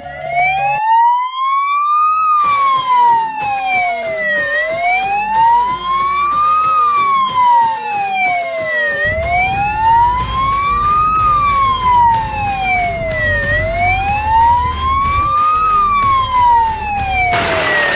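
Fire truck's siren sounding a slow wail, its pitch rising and falling about once every four and a half seconds, with the truck's engine running underneath. A loud rushing noise takes over near the end as the wail fades.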